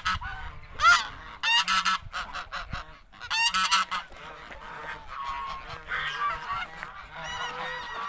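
Flock of domestic geese honking: loud calls about a second in, again near two seconds and between three and four seconds, then softer overlapping calls.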